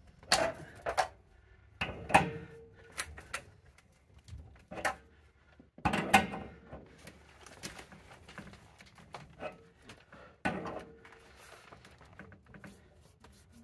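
Irregular metal clinks and knocks of a wrench working a threaded water-line fitting on top of a water heater, with a few louder clanks.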